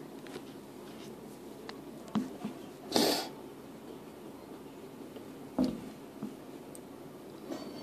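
Small metal bowl knocked and pushed around on a concrete floor by a playing kitten: a handful of sharp clanks and scrapes, the loudest about three seconds in and another about five and a half seconds in.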